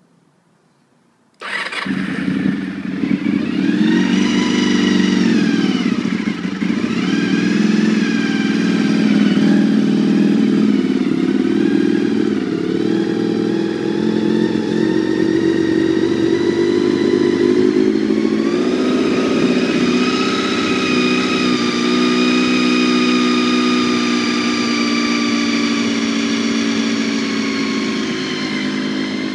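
Honda VFR400R NC30's 399 cc V4 engine firing up on a cold start about a second and a half in, through an aftermarket carbon-fibre silencer. The revs rise and fall for the first few seconds, then it settles into a steady idle that eases slightly lower near the end.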